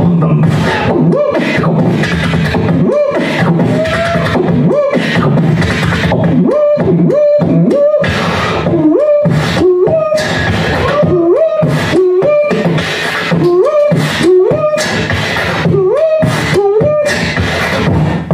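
Human beatboxing into a handheld microphone: a fast, steady rhythm of vocal kick, snare and hi-hat sounds, with a repeated pitched vocal line that swoops down and back up over the beat, clearest from about six seconds in.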